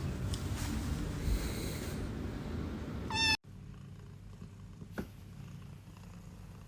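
Domestic cat purring close to the microphone, a steady low rumble. Just after three seconds there is a short high-pitched cry, then the sound cuts off abruptly to a quieter low hum with a single click.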